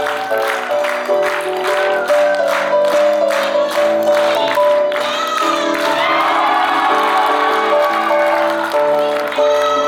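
Music with held chords and a regular beat of sharp hits through the first half, which then gives way to smoother sustained notes.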